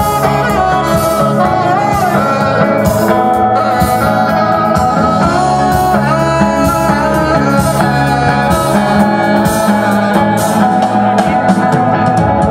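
A live rock band playing through a PA: electric guitars, drum kit, keyboard and saxophone, with a sung vocal line over a steady beat.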